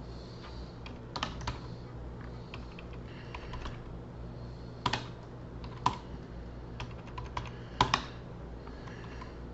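Typing on a computer keyboard: irregular keystrokes, with a few louder key presses standing out, over a steady low electrical hum.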